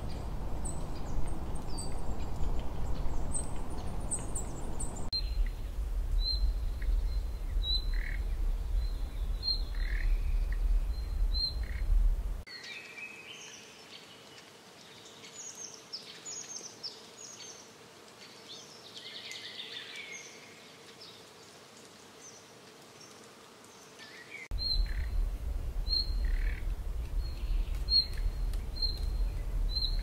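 Small birds chirping and calling over a low outdoor rumble. A short high chirp repeats about once a second. Partway through, the rumble drops out for a quieter stretch of varied twittering calls, and then the repeated chirps and rumble return.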